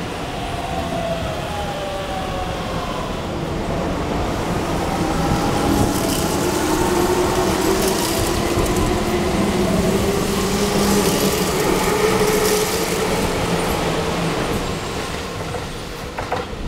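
Keihan 5000 series train pulling out past close by, its traction motors whining and rising slowly in pitch as it gathers speed over a loud rumble of wheels on rail. The rumble is loudest as the cars pass, then fades as it draws away. In the first few seconds a falling whine comes from the arriving 7000 series slowing to a stop.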